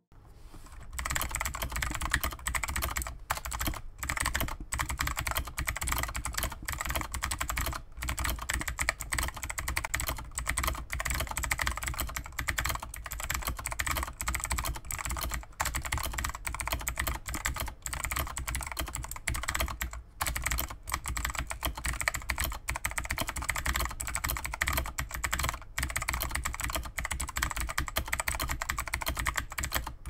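Fast, continuous typing on a budget 60% mechanical keyboard: a dense stream of key clacks at about 100 words a minute, starting about a second in.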